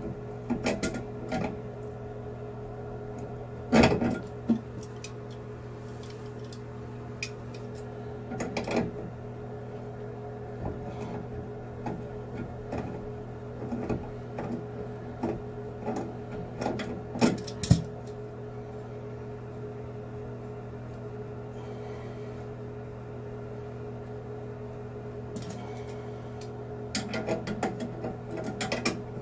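Scattered clicks, knocks and light metallic clanks of a wrench and fittings as a sink's water supply lines are unscrewed from the wall shutoff valves, the loudest knocks about 4 seconds in and about two-thirds of the way through, with a flurry near the end. Under it runs a steady low hum.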